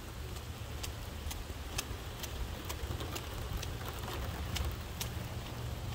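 Light rain falling on wet pavement and puddles, a steady hiss with scattered sharp ticks of single drops, over a low hum.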